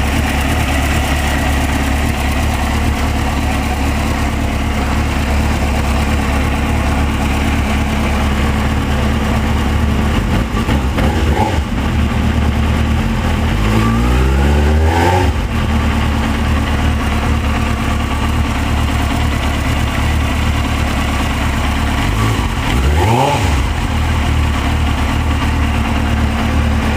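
Suzuki GSX-R 600 inline-four engine idling steadily on a stand after a fresh oil change. It is revved twice: a longer rev that climbs over a couple of seconds about halfway through, then drops back, and a short blip near the end.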